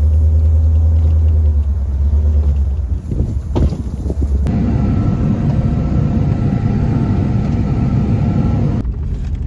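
A vehicle engine running steadily with a deep, low rumble. The sound changes abruptly about halfway through, and the engine continues with a different tone.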